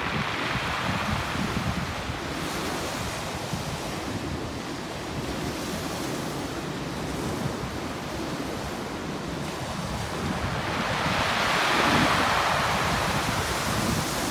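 Waves washing up a pebble beach and drawing back over the stones, with a louder surge of breaking surf near the end. Wind buffets the microphone throughout.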